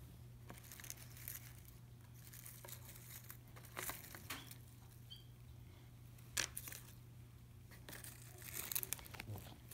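Fingers sifting through dry dead leaves and bark in a plastic deli cup: faint, scattered crinkling and rustling, with a sharper click about six seconds in and a busier stretch of rustling near the end.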